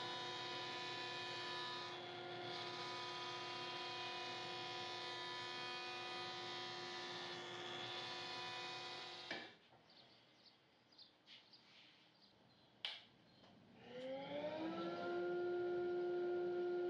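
Woodworking machine running with a steady whine that cuts off abruptly about nine seconds in; a few clicks and knocks follow. About fourteen seconds in, a cabinet table saw's motor starts and spins up with a rising whine, then runs at a steady pitch.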